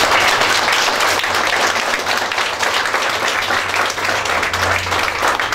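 A roomful of people applauding, many hands clapping at once in a dense, even patter.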